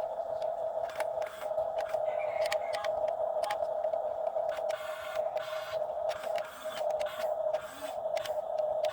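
Excavator at work: a steady machine whine with frequent short knocks and scrapes over it.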